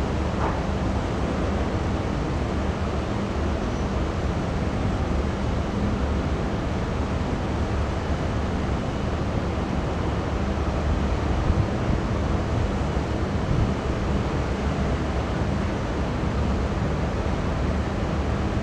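Push tug's diesel engine running with a steady low rumble as it pushes a loaded barge, mixed with wind buffeting the microphone.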